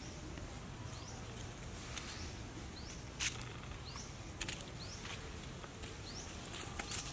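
Quiet outdoor background with a short, high rising chirp repeating every second or so, and a few sharp clicks, the loudest a little after three seconds in.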